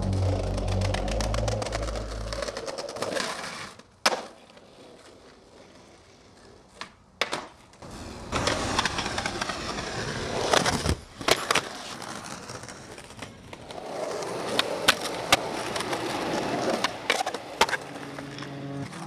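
Skateboarding: urethane wheels rolling over asphalt and concrete, broken by several sharp clacks of tail pops, landings and the board slapping the ground. Music fades out in the first couple of seconds.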